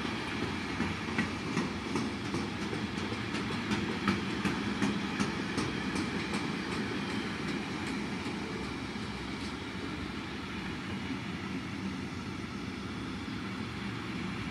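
A train passing on the line, its wheels running with a steady rumble and a regular clickety-clack of about three clicks a second that is sharpest in the first half, then settles into a smoother rumble.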